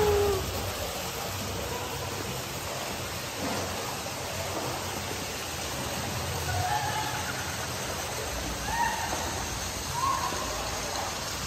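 Steady rush of Coyote Creek flowing through the cave.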